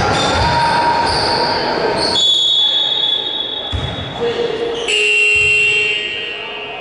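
Basketball game on an indoor court: ball bouncing and shoes squeaking amid crowd voices. About two seconds in comes a long, steady, high whistle blast, then more squeaks and bounces.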